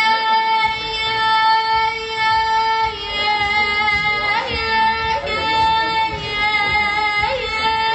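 A high voice singing long, held notes, with short sliding turns between them.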